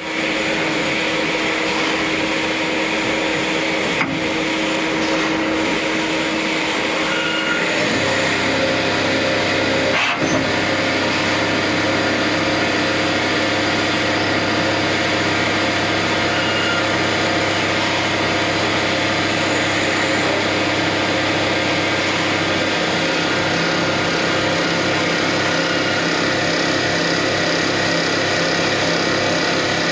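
Kraft Tech CNC automatic lathe running steadily while machining handles. There is a click about four seconds in and a sharp knock about ten seconds in. A lower hum joins at about eight seconds, and a pulsing low rhythm sets in past the twenty-second mark.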